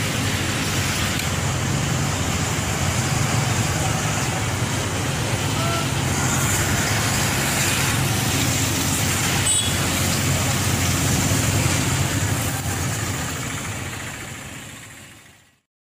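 Tractor engine running steadily under road traffic noise, with motorcycles passing; the sound fades out near the end.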